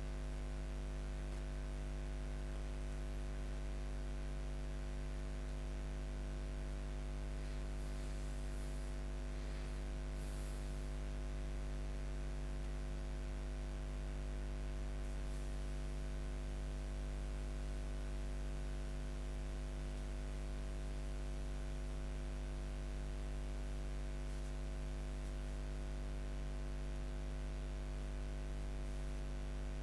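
Steady electrical hum with several steady tones over a faint hiss, and a few faint ticks about eight to ten seconds in.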